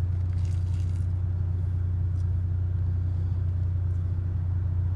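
Car engine idling steadily, heard from inside the cabin as a low, even hum. A few faint rustles of the paper towel wrapped around a sandwich come near the start and about two seconds in.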